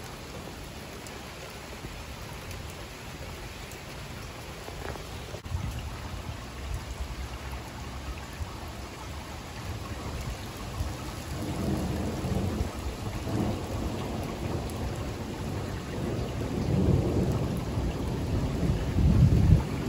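Steady rain falling, with a long low rumble of thunder that sets in about five seconds in and rolls on, swelling and growing louder toward the end.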